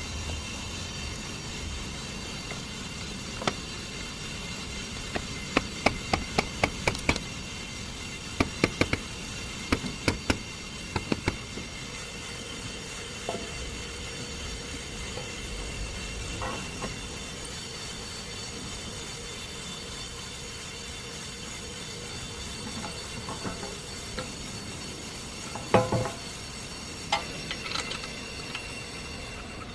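Clusters of sharp clicks and knocks, several a second in bursts, over a steady mechanical hum with a faint high whine.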